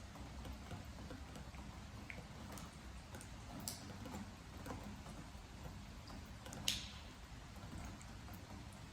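Raindrops dripping onto a wooden deck with scattered, irregular taps over a faint steady rain. The loudest drip lands about two-thirds of the way through.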